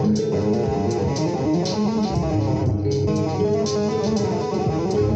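Extended-range electric guitar played with two-handed tapping: fast runs of notes in a fusion style, with bass notes and a melody sounding together.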